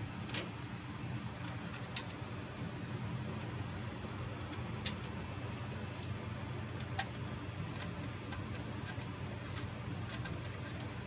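A few sharp, scattered clicks and taps of a screwdriver working on an MEI bill validator's plastic housing, over a steady low hum.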